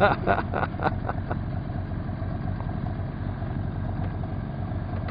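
Boat motor idling with a steady low drone.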